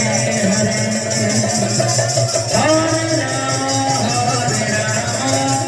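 Kirtan music from a women's kirtan group: a melody of held, sliding notes over a steady, even jingling of hand cymbals.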